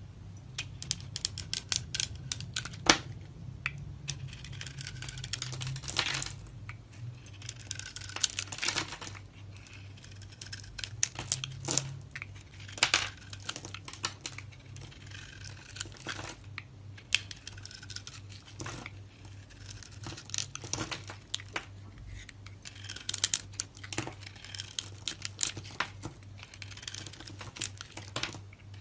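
Knife cutting into dry soap: repeated bursts of crisp crackling and snapping clicks, some sharper and louder than others.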